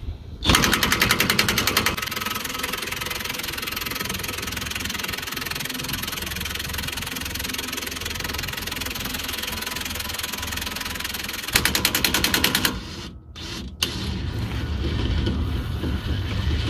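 Cordless impact wrench on its lowest setting with a 27 mm socket on a Ford 8.8 rear axle's pinion nut: a short burst of rapid hammering as the nut breaks loose, then the tool running steadily for several seconds, with another brief burst of hammering about twelve seconds in.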